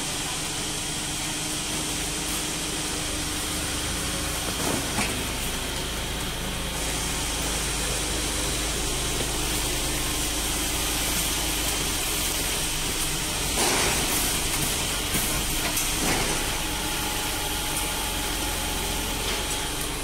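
Automatic horizontal baler's hydraulic power unit and motor running with a steady hiss and hum, broken by a few short knocks, the loudest about 14 seconds in.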